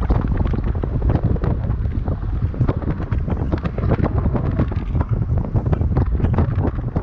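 Wind buffeting the microphone: a constant low rumble with many short crackles through it.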